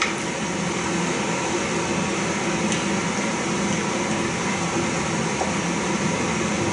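Steady background hum and hiss, heard through a camcorder re-recording of a TV's speaker, with a couple of faint ticks.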